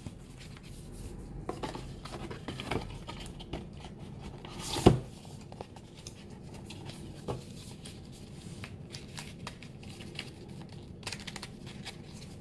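Cardboard and paper product packaging handled by hand: rustling, sliding and small clicks, with one louder knock about five seconds in.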